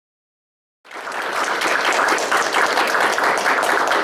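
Audience applauding, the clapping starting suddenly about a second in and continuing steadily.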